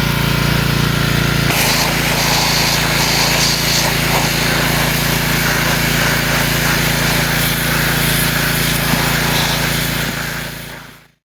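Ported Husqvarna 350 49 cc two-stroke chainsaw engine running steadily at high speed, its tone shifting about a second and a half in. It fades out quickly near the end.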